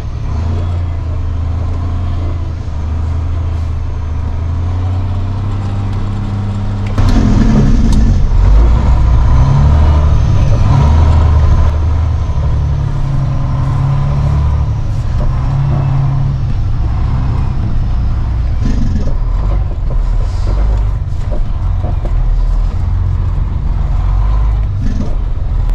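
Freightliner day cab semi truck's diesel engine heard from inside the cab while driving. About seven seconds in the engine gets markedly louder, as under acceleration, and eases back a little about five seconds later.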